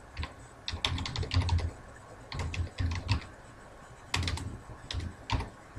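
Typing on a computer keyboard: keystrokes clicking in several quick bursts with short pauses between them.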